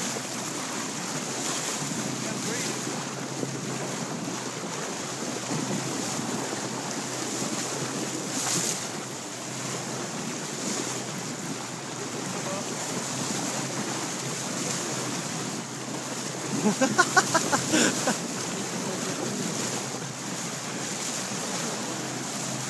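Steady rush of water and wind along a moving boat, with wind buffeting the microphone. About seventeen seconds in there is a short run of rapid pulses lasting a second or so.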